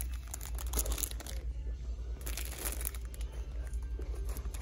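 Plastic packaging around a vinyl tablecloth crinkling as it is handled, in two main bursts: one at the start and one about halfway through.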